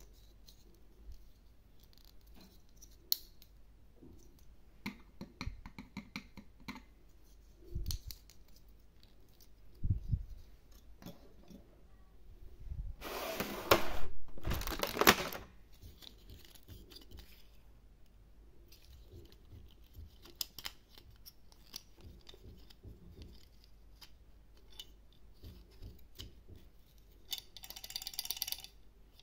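Hard plastic toy figures and a clear plastic blister tray being handled: scattered small clicks and taps of plastic parts, with a louder stretch of crinkling plastic about halfway through and again near the end.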